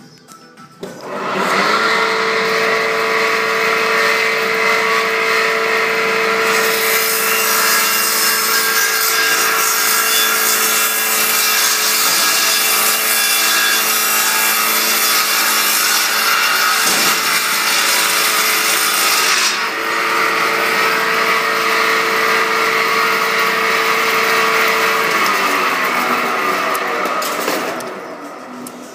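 Combination woodworking machine starting up and running, with a harsher cutting noise for about thirteen seconds in the middle as wood is fed through. Near the end it is switched off and its hum falls away as the blade spins down.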